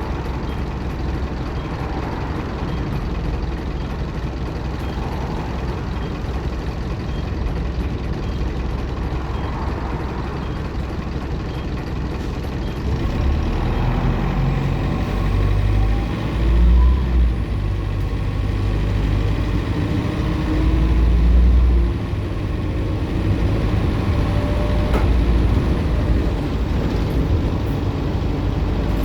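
Optare Solo M950 bus's diesel engine running, with a faint high turbo whine. The engine rumble grows louder about halfway through, surging twice, as the bus comes under load.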